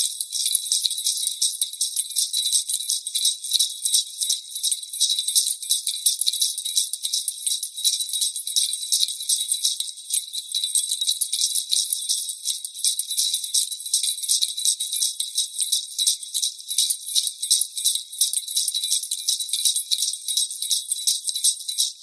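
Small jingle bells shaken steadily without a break, a dense, rapid, high-pitched jingling. It trails off at the very end.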